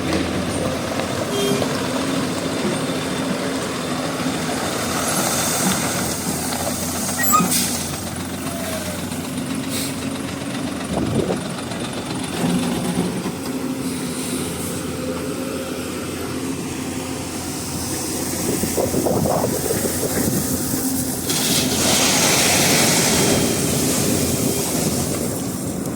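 Hyundai 215 crawler excavator's diesel engine running steadily under working load, with occasional sharp clanks as it digs and loads stone, and a louder, hissier stretch near the end.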